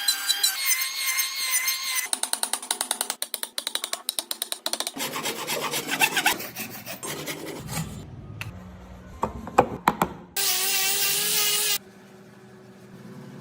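A succession of woodworking tool sounds on wood: a power tool's motor whining, then rapid rasping strokes, a few sharp knocks, and a loud steady motor burst of about a second and a half near the end.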